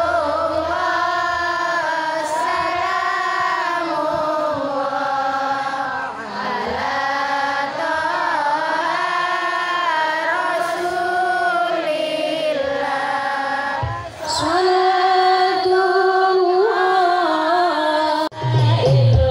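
A woman singing a sholawat, a devotional song praising the Prophet, through the PA in long, gliding held notes. Near the end a heavy low beat comes in and the music gets louder.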